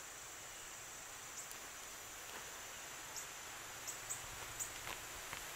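Steady high-pitched chirring of insects, with a few faint short ticks scattered through it.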